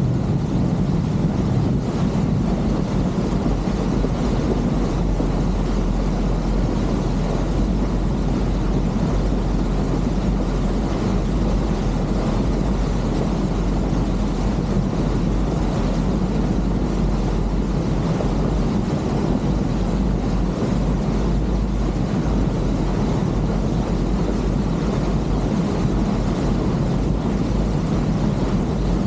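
Motorboat engine running steadily under way, a constant low drone with no change in speed.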